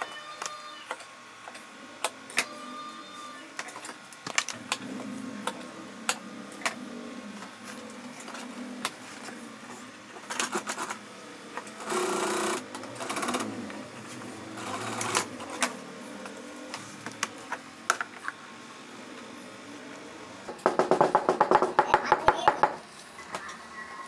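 Industrial single-needle sewing machine stitching leather jacket panels in a few short bursts. The longest and loudest is a rapid run of needle strokes lasting about two seconds near the end. Between the bursts there are scattered clicks and rustles as the leather pieces are handled.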